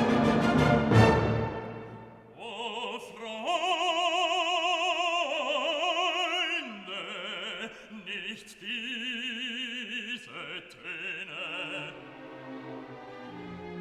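Background classical music: an orchestral chord dies away in the first two seconds, then an operatic voice sings with a strong vibrato in several phrases over the orchestra.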